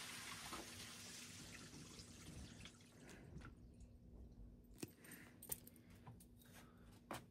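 Near silence: faint room hiss fading away over the first few seconds, then a few soft, isolated clicks.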